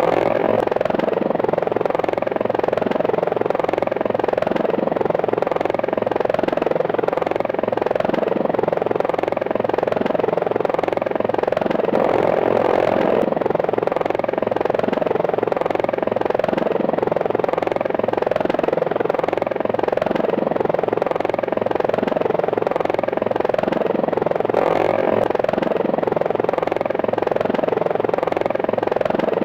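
Helicopter flight sound effect: steady rotor and turbine engine noise, with no gunfire or missile launch.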